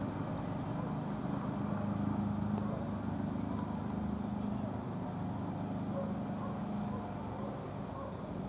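Steady murmur of a stadium crowd, with no single sound standing out, over a faint high steady whine.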